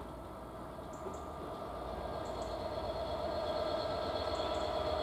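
Class 67 diesel locomotive, an EMD two-stroke V12, approaching: its engine makes a steady drone with a high tone above it, growing gradually louder.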